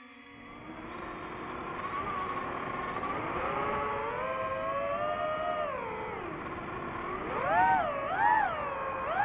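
DJI FPV drone's motors and propellers whining, the pitch rising and falling with the throttle under manual control. The whine starts low, climbs and holds, sinks, then rises and falls twice in quick blips near the end.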